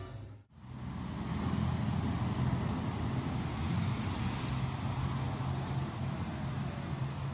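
Urban street traffic noise: a steady rumble of passing road vehicles, with a brief dropout about half a second in.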